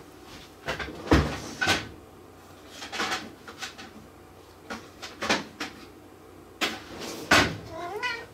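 Several separate sharp knocks and clatters of hard objects being handled and set down. Near the end a cat starts to meow.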